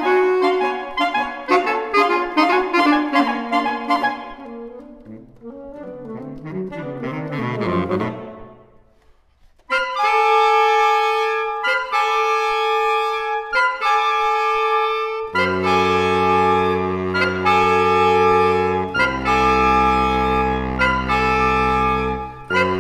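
Saxophone quartet of soprano, alto, tenor and baritone saxophones playing. Quick detached notes give way to a falling run that fades almost to nothing about nine seconds in. Long held chords follow, with the low baritone notes coming in about fifteen seconds in.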